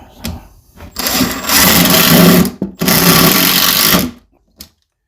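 Cordless power driver driving screws into a plywood cabinet box: two runs of about a second and a half each with a short pause between, stopping suddenly.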